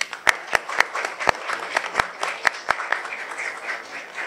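Applause: steady clapping from several people, with a few loud, sharp claps from nearby standing out during the first three seconds. It cuts off suddenly at the end.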